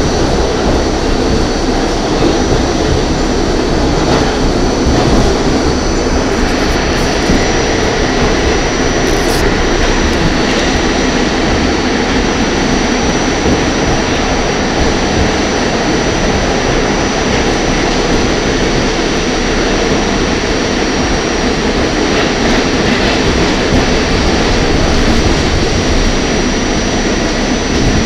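R44 subway car running at speed, heard from inside the car: a loud, steady rumble of the train's running noise with a thin, steady high whine over it.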